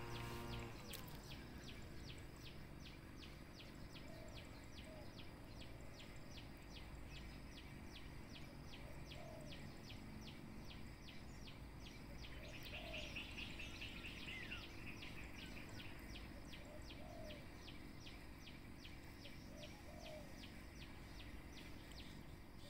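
Faint outdoor ambience. An insect chirps at an even rate of about three chirps a second throughout, and a few soft bird calls come in now and then.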